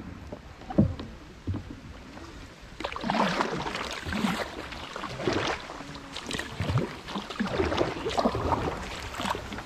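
Kayak paddle strokes swishing through duckweed-covered water, a stroke about every second, with a sharp knock about a second in.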